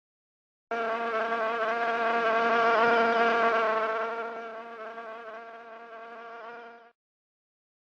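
A flying insect buzzing with a steady, slightly wavering hum; it comes in about a second in, grows louder, then fades away and stops near the end, as if flying close and away.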